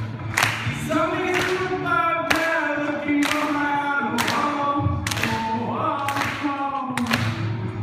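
A male voice singing a pop-rock song live, held and sliding notes over a sharp, steady beat that lands about once a second.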